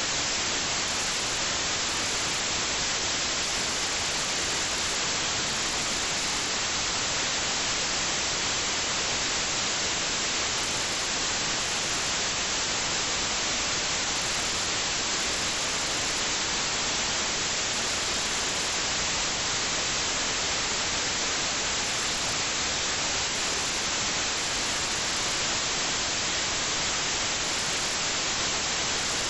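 Steady, even static hiss that does not change, with no engine or splashing heard through it: electronic noise on a cheap recorder's sound track.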